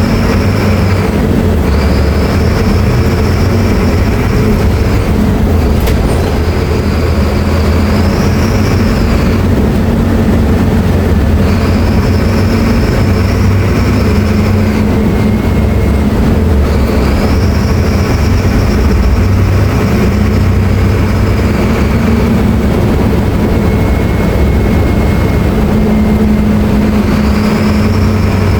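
Mercedes-Benz OF-1724L BT5 bus's diesel engine running loudly and steadily, with a high whine that rises in, holds for a few seconds and falls away about six times.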